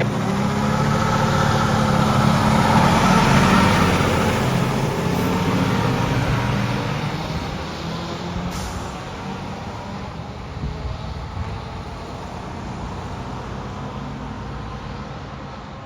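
Fire truck's diesel engine passing by, loudest about three seconds in, then slowly fading as it drives away.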